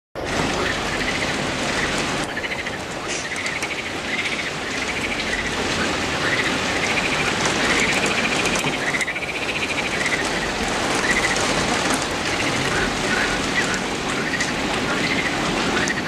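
Steady rain falling on leafy trees. Over it, an animal gives a short, high call over and over.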